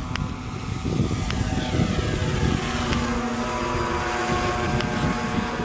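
Propeller motor of a radio-controlled model airplane whining as the plane flies past, its pitch falling over the first few seconds and then holding steady. A constant low rumble runs underneath.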